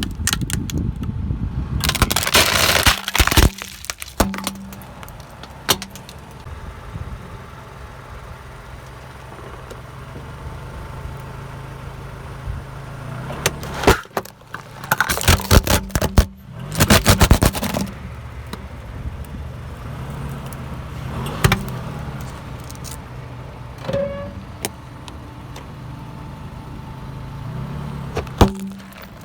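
A car's engine running slowly while its tyres roll over and crush objects. There are loud bursts of crunching and cracking about two seconds in and again around fifteen seconds in, then a few single cracks near the end.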